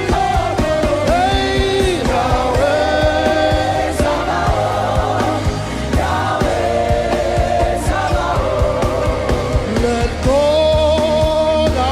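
Gospel worship music: voices singing long held notes that slide between pitches, over a band with bass and a steady drum beat.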